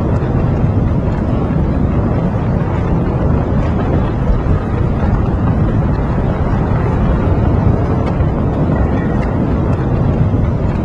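A loud, steady low rumble that holds unchanged throughout.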